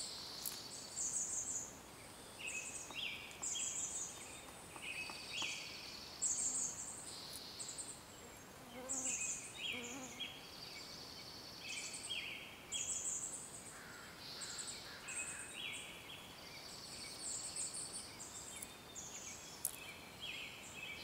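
Woodland birdsong: several small birds repeating short, high chirps and trills that overlap one another over a faint steady outdoor background.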